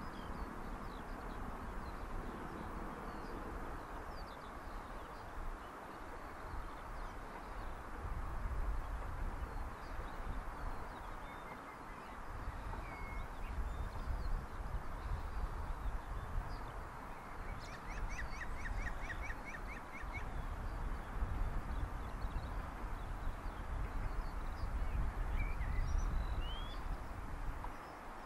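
Birds calling and chirping, with a quick trill of about a dozen notes about two-thirds of the way through, over an uneven, gusting low rumble.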